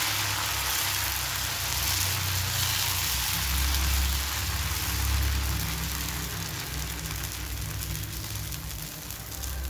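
Dosa batter sizzling on a hot cast-iron tawa as a steel ladle spreads it in a spiral; the sizzle is strongest in the first few seconds and eases off. A steady low rumble runs underneath.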